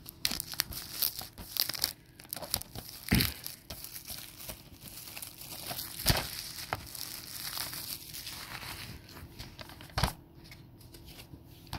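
Plastic shrink wrap being torn and peeled off a DVD box set, crinkling and crackling throughout, with a few sharper cracks, the loudest about six and ten seconds in.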